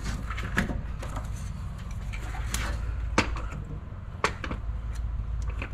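Scattered metal clinks and knocks as a transfer case is pushed up by hand and worked into place against a vehicle's transmission. The two sharpest knocks come about three seconds in and just over four seconds in, over a steady low hum.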